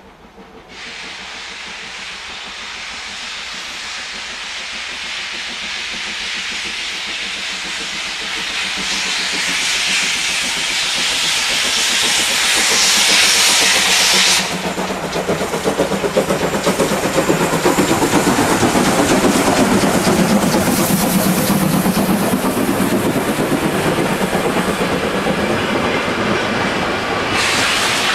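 Steam locomotive pulling away with a loud steam hiss, the hiss building for over ten seconds and cutting off abruptly about halfway. The locomotive and its passenger coaches then rumble and clack past on the rails, with another short burst of hiss near the end.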